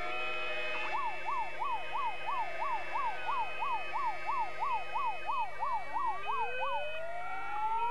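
Electronic synthesizer music mixed with siren sounds: a fast yelping siren sweeping up and down about three times a second from about a second in until near the end, with slow rising wails around it.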